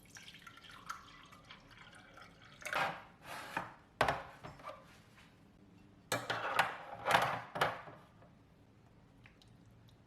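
Kitchen tap water running in two short spells of a second or two, with small clicks and knocks of kitchenware.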